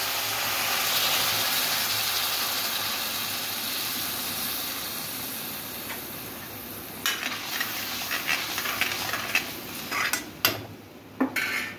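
Ground onion, tomato and green chilli paste sizzling in hot oil in a steel kadai, a steady hiss that slowly dies down. From about seven seconds in, a spoon scrapes and clinks against the pan as the paste is stirred.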